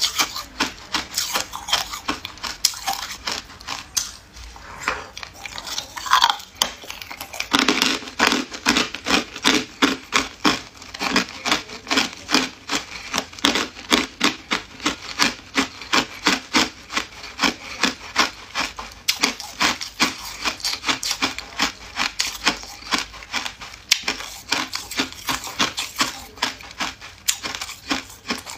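Hard ice cubes being crunched between the teeth, close to the microphone: a continuous run of sharp, brittle crunches, about three or four a second.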